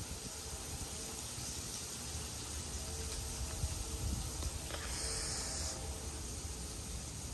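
Steady hiss of freezing rain and sleet falling on icy ground, over a low rumble. A short, brighter crackle comes about five seconds in.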